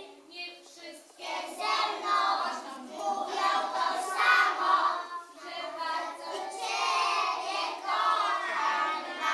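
A group of young children singing a song together, picking up again after a short break about a second in.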